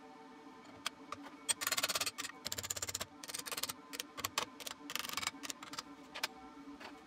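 Light knocks and clicks of steel plate being handled and set against welding magnets and tapped with a small brass hammer, with a few short scrapes of metal sliding on metal, over a steady low hum.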